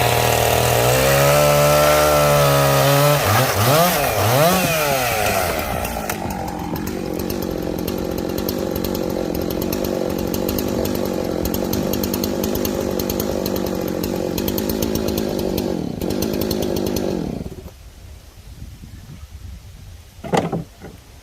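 Two-stroke chainsaw cutting through firewood under load, its pitch rising and falling as it revs. About six seconds in it settles to a steadier, lower running, and it stops around seventeen seconds in. Two sharp knocks come near the end.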